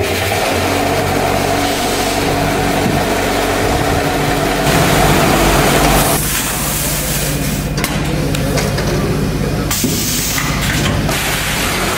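Powder packaging machinery running with a steady mechanical hum. About six seconds in, the sound changes to a vertical bagging machine running, with short hisses of compressed air from its pneumatic sealing jaws.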